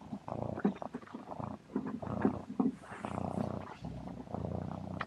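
Barn cat purring, picked up at close range by a small camera strapped around its neck.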